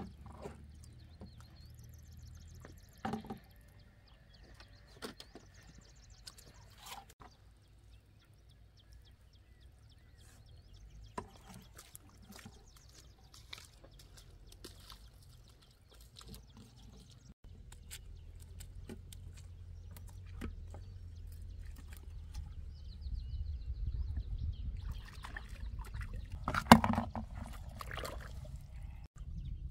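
Water splashing and trickling with scattered sharp knocks, the loudest near the end, over a low rumble that grows through the second half.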